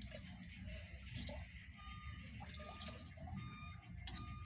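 Chicken cooking in a pan of liquid on a gas stove, a faint steady sizzling as a spoon stirs it, with a light knock near the end.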